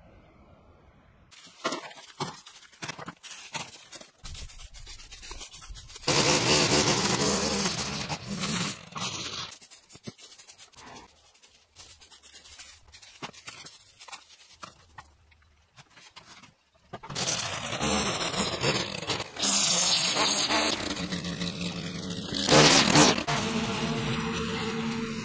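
Rake scraping through dry leaf and bark litter in short, irregular strokes, broken by a leaf blower running loud, briefly about six seconds in and steadily through the last several seconds.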